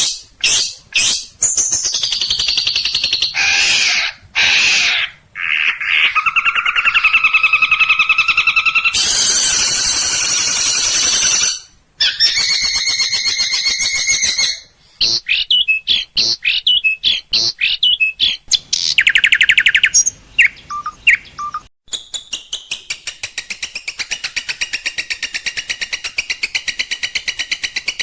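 Long-tailed shrike (cendet) song: a loud, fast, varied string of sharp whistles, harsh chattering notes and rapid trills. Phrases break off abruptly and change, and near the end it settles into a fast run of rapidly repeated notes.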